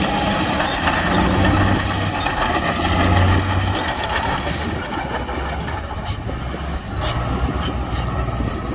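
Heavy diesel earthmoving machinery running, with a deep engine note that eases off after about three and a half seconds. A series of sharp clanks follows in the second half.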